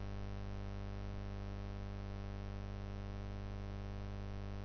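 Steady electrical mains hum with a buzzy stack of overtones, unchanging.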